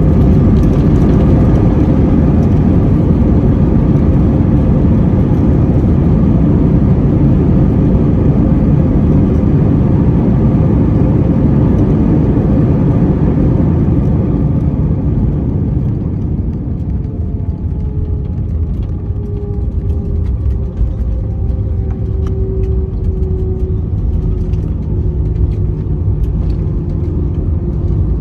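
Airbus A321-200 jet engines and airflow heard from inside the passenger cabin as the airliner slows after landing: a loud, steady roar that eases off about halfway through, followed by a whine gliding slowly down in pitch as the engines spool down.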